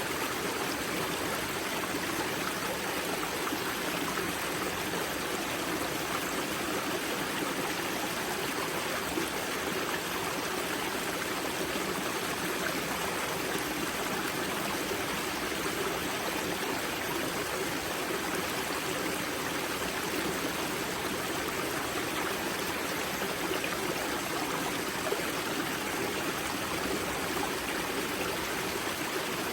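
Steady rush and babble of a river's spring water flowing over rocks at its wellhead.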